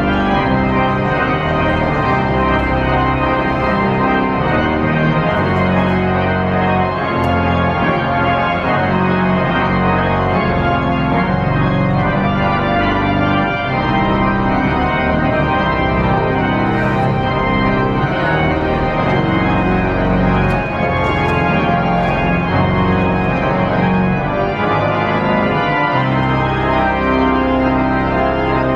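Music of steady, sustained keyboard chords with an organ-like sound.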